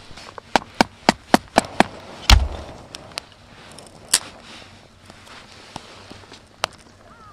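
Sharp wooden knocks from handling a fixed-blade bushcraft knife and a kindling stick: a quick run of six clicks, about four a second, then one heavier thump, then two single clicks later on.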